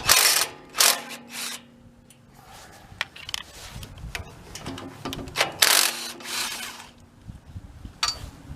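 A generator's air box being worked loose and pulled off by hand: rubbing and scraping of the housing parts, loudest right at the start and again about five and a half seconds in.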